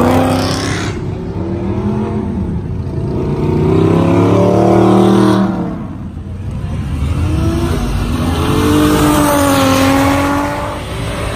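Two performance cars accelerating hard away down a road one after the other, engines revving through the gears: first a white Audi R8, loudest about four to five seconds in, then a dark hatchback near the end.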